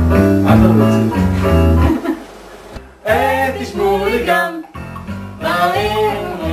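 Backing music with guitar and a steady bass line, with a voice singing a duet melody over it from about three seconds in.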